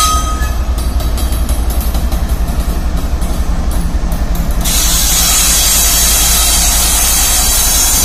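WDG-4G diesel-electric locomotive passing at low speed, its V12 diesel engine running with a deep, even throb. A steady horn note cuts off about half a second in, and a steady hiss comes in a little past halfway.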